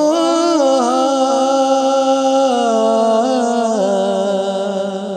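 Naat recitation: a single unaccompanied voice holding one long sung note with wavering ornaments, stepping down in pitch twice and fading near the end.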